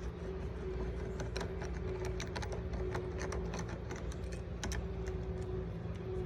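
Many light, irregular clicks and taps of hand work on an RV entry door lock as its latch mechanism is taken out, over a steady hum.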